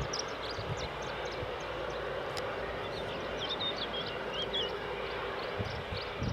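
Steady distant aircraft engine noise at the airfield, with a small bird chirping a quick run of short high notes about halfway through.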